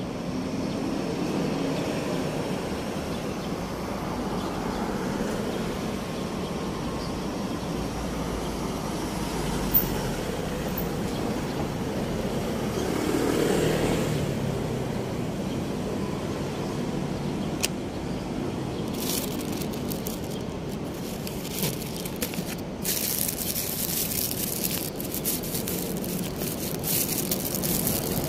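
City street traffic: a steady hum of passing cars, with one vehicle swelling past about halfway through. In the last third a rustling, crackling hiss joins in.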